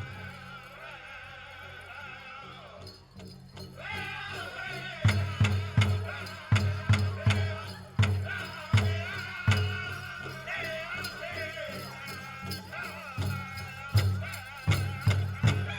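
Powwow drum group singing high, wavering vocals over heavy beats on a large bass drum. The drumming is soft for the first few seconds, then strong regular beats return about five seconds in.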